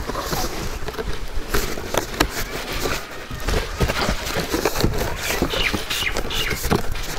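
Irregular clicks and rustles of a flattened cardboard box being handled and bent into a curve, with birds chirping.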